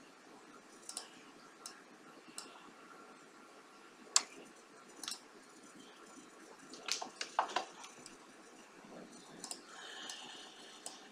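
Faint, scattered computer mouse clicks, about a dozen, with a quick run of several around seven seconds in.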